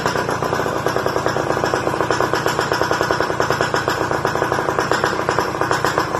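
Suzuki X4 motorcycle engine running steadily, its exhaust a rapid, even train of pulses.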